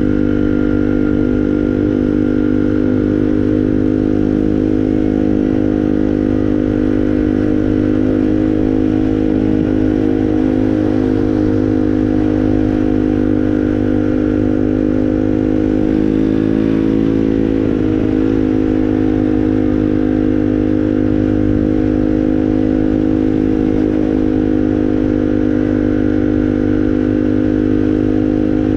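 Moped engine running steadily, with a brief wobble and dip in pitch about two-thirds of the way through before it settles back to the same note.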